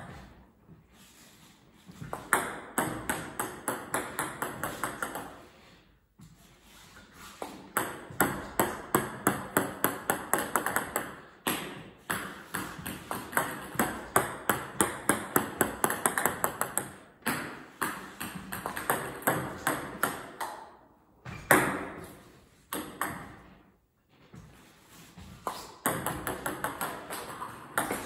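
Table tennis ball bouncing repeatedly, with hard, sharp pings about three or four times a second. They come in runs of a few seconds with short pauses between.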